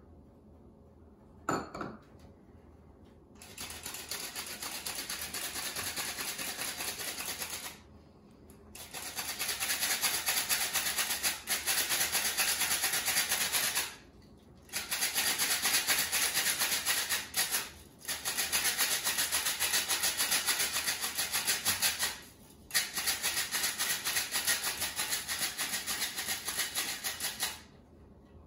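Handheld metal flour sifter sifting flour, sugar, cinnamon and salt: a fast, scratchy rattle of the agitator working the flour through the mesh, in five stretches with short pauses between.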